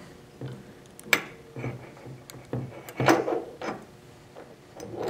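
A few light clicks and knocks of small metal tools and parts being picked up and set down on a tabletop, with some handling rustle in between.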